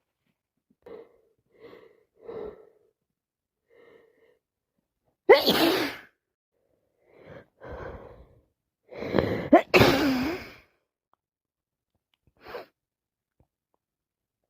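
A woman sneezing with a common cold. Short catching breaths build up to one loud sneeze about five seconds in. After a couple more breaths comes a loud double sneeze, and a short sniff follows near the end.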